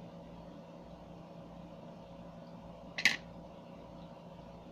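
Air conditioner running with a steady hum, broken once about three seconds in by a short sharp click.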